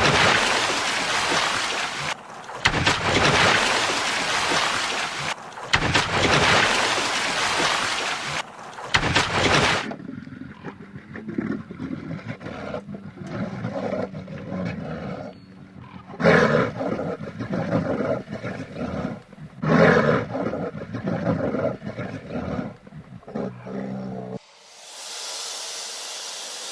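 A large wild animal roaring and growling in a series of loud bursts. A different, steady sound takes over near the end.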